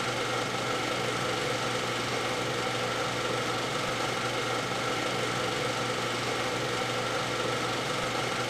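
Steady mechanical whirr of a Super 8 film projector running: a constant motor hum with an even hiss and no change in pace.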